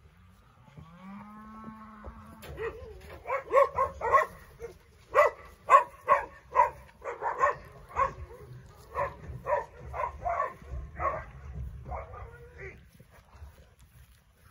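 Charolais-cross calves calling: one drawn-out moo that rises in pitch at the start, then a long run of short, loud calls, about two to three a second, stopping near the end.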